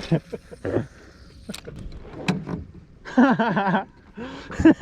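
A few sharp knocks and clunks of gear on a boat, then a man's voice calling out about three seconds in.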